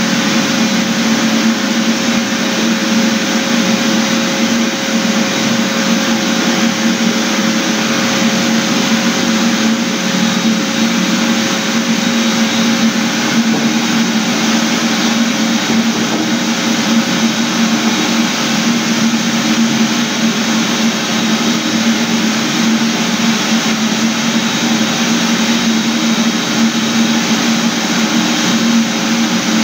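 Electric floor-care machine running steadily under a constant load, with a strong low hum and a fainter higher tone over even motor noise.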